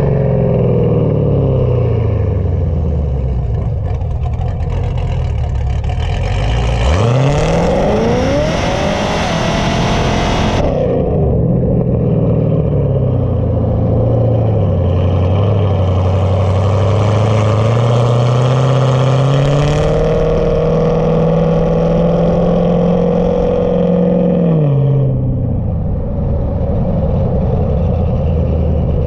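Camaro's LS V8 with a Texas Speed stage 1 VVT cam, running on the road. The revs fall at first, climb sharply into a hard pull with a loud rush about seven seconds in, and drop off near eleven seconds. They rise again and hold steady, then fall away near the end.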